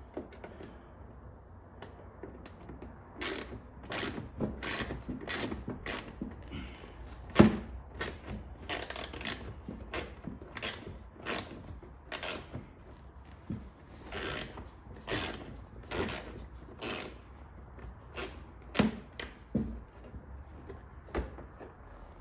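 Irregular clicks, taps and clatter of hand tools removing T20 screws and plastic push clips from a car's plastic inner wheel-well liner, with one sharp knock about seven seconds in.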